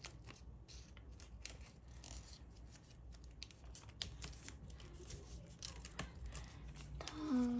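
Origami paper being creased and handled by fingers while a flap is tucked in: soft, irregular crinkles and small ticks of the folding paper.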